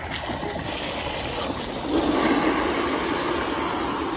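Steady rush of pressurized pool water feeding a Pentair Racer pressure-side pool cleaner, which is being tried out with the pressure on. It gets louder about two seconds in.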